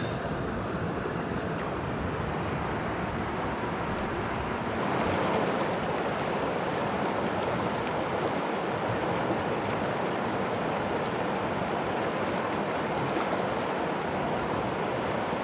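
Shallow river water running over rocks: a steady rush of flowing water that grows louder about five seconds in.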